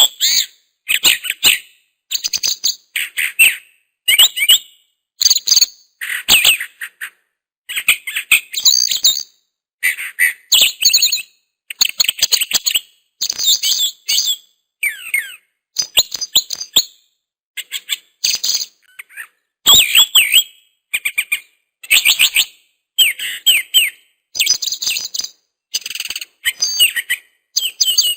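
A bird chirping in short, rapid phrases of high, sweeping notes, about one phrase a second, with dead silence between them.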